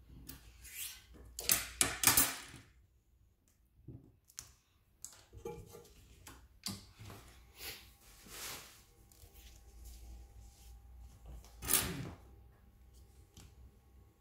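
Handling noise of synthetic webbing strips and tools being moved about on a wooden table: irregular rustles and knocks, loudest about two seconds in and again near twelve seconds.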